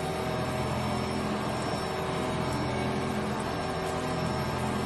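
CNC molybdenum wire EDM cutting machine running: a steady mechanical hum with several steady tones, over an even hiss.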